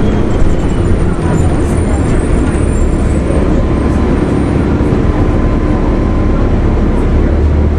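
2004 Gillig Phantom transit bus running under way, its Cummins ISL inline-six diesel and Voith D864.3E automatic transmission giving a steady, loud low rumble with a faint thin whine above it. The low engine note grows stronger near the end.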